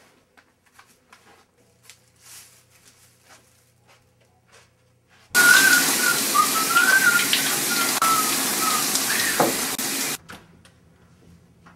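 Shower spray hissing for about five seconds, with a person whistling a wavering tune over it; a slide down in pitch near the end, then the water and whistling cut off suddenly. Before the water starts there are only faint clicks and rustles.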